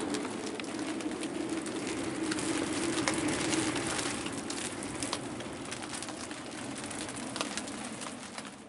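Gale with heavy rain: a steady low moan of wind, loudest in the first half, over constant hiss and many sharp taps of rain hitting the yacht. It fades away at the very end.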